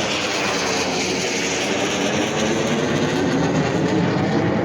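An airplane's engine running loud and steady as the plane flies past during an air show display, its pitch shifting as it goes by.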